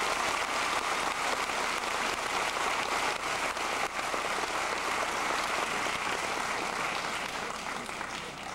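Crowd applauding with steady, dense clapping that thins out and quietens near the end.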